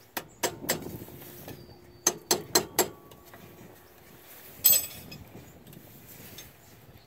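Light metal-on-metal taps on the turbocharger's band clamp of a Detroit Series 60 diesel, struck so the clamp seats and closes evenly as it is tightened. There is a quick run of three taps, then four more about two seconds in, and then a single louder, ringing metallic clank a little past the middle.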